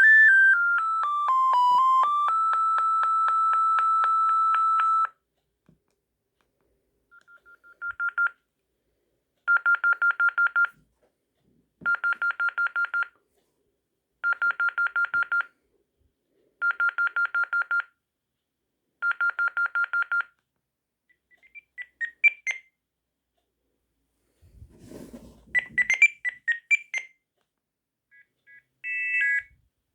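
Sagem MY 3022 mobile phone playing its built-in ringtones one after another: a beeping tune that glides up and down and stops about five seconds in, then a ring of rapid beeps at one pitch in six short bursts about two seconds apart, then short fragments of other beeping tunes near the end.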